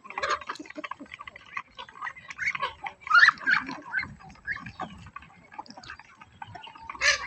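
An animal calling in quick, irregular cries, with the loudest cry about three seconds in and another near the end.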